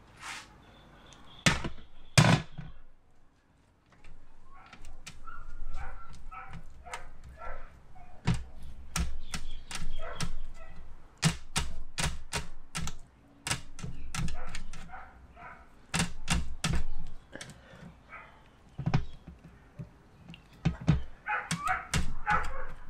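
Irregular clicks, taps and knocks of a basting brush and sauce bottle being handled over a metal wire grill rack on an aluminium deck, a few sharp loud knocks among many lighter taps.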